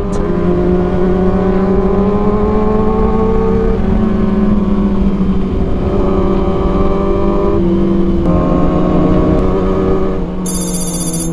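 Kawasaki ZX-6R 636 inline-four with an Arrow exhaust, running at steady revs, its pitch stepping down and up a few times. Near the end a high, ringing electronic tone joins in.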